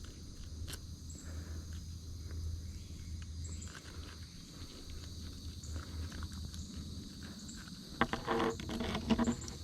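Insects chirring steadily, with a low rumble of handling noise, a single click about a second in, and a few short pitched sounds near the end.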